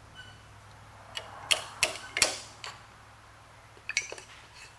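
Sharp metallic clicks and taps from tools being handled at a metal lathe that is out of gear. About six come between one and three seconds in, the loudest about two seconds in, and a few more follow near four seconds in.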